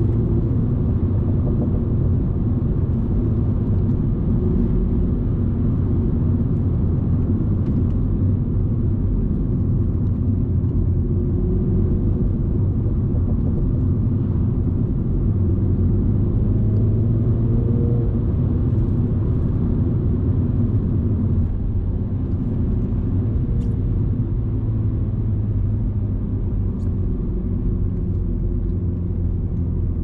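F56 Mini JCW's B48 2.0-litre turbocharged four-cylinder engine running at a steady cruise, a low drone with tyre and road noise and no revving. It eases off slightly about two-thirds of the way through.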